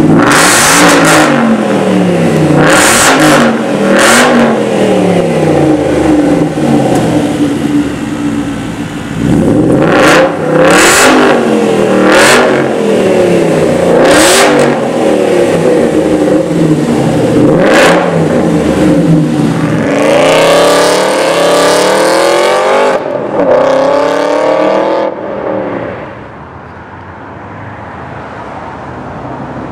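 Aston Martin Vantage on a custom exhaust, revved repeatedly while standing, each rev rising and falling in pitch. About two-thirds of the way through it pulls away with one long rising rev that stops suddenly, and the engine is fainter after that.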